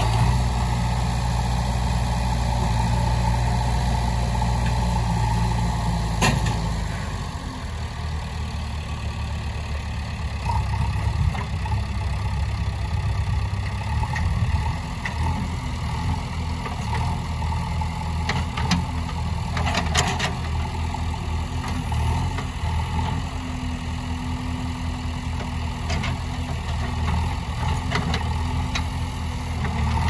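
2018 JCB 3DX backhoe loader's diesel engine running steadily, its note changing and dropping a little about seven seconds in while the front loader bucket is lowered to the ground. A few sharp knocks are heard, about six and twenty seconds in.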